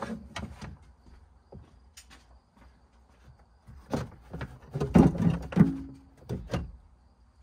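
Hard plastic cargo-area trim panel of a Dodge Journey being handled and fitted into place: scattered knocks and thunks, the loudest cluster about five seconds in, with a brief creak.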